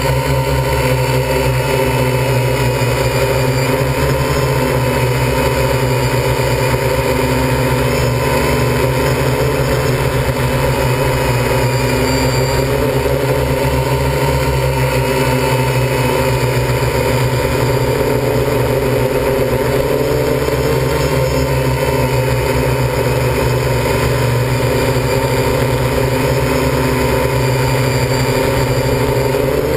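MikroKopter L4-ME multicopter's electric motors and propellers, heard from the camera on board: a loud, steady buzz whose pitch wavers only slightly.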